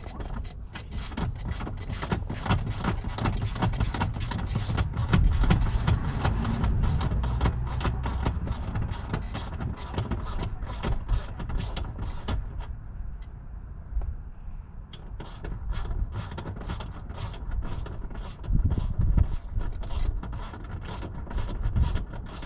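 Ratchet wrench clicking in a steady run of a few clicks a second while seat bolts are worked, with a pause of a couple of seconds partway through, over a low rumble.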